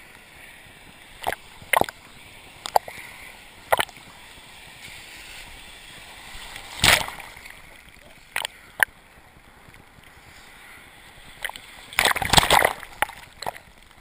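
Seawater from breaking surf splashing and sloshing against a camera held at the waterline: a steady wash broken by sharp, irregular splashes, the biggest about halfway through and a quick flurry of them near the end.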